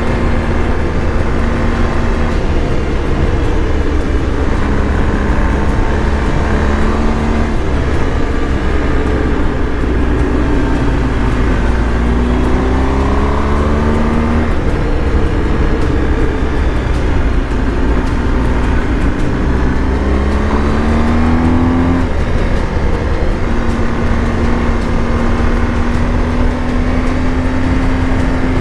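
BMW R 1250 GS Adventure's boxer-twin engine running under way, over a steady low rumble. Twice the engine note rises as it accelerates and then drops suddenly at a gear change, about halfway through and again about three quarters of the way through.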